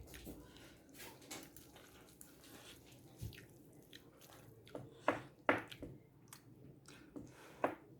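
Eating sounds of a person chewing fried instant noodles close to the microphone: quiet chewing with scattered sharp wet mouth clicks, more frequent and louder in the second half.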